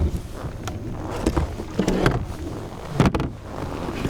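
Irregular knocks and thumps of handling on a fishing kayak, the strongest about three seconds in, over a steady low rumble.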